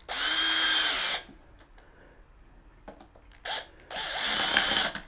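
Cordless power drill/driver driving screws in short runs: a whirring run of about a second at the start, a brief blip, then another run of about a second near the end.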